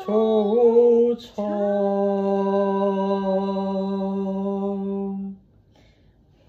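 A voice singing unaccompanied: a short note with a slight dip in pitch, a quick breath, then one long note held steady for about four seconds before it stops.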